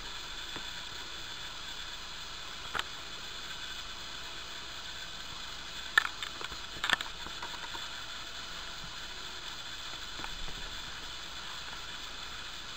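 Steady low hiss of room tone, with a few faint short clicks: one about three seconds in and two more around six and seven seconds in.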